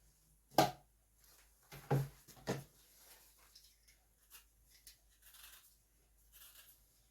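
Three sharp knocks of kitchen handling, a second or so apart, followed by faint rustling and scraping, as diced pear and sugar are layered into a glass jar.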